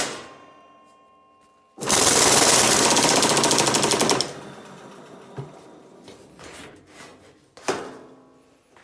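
Power hammer converted from a nibbler, fitted with louver dies, runs with a fast even hammering for about two seconds as a louver is pressed into sheet metal. A sharp metallic clang rings out just before it, and a few lighter clanks follow as the panel is handled.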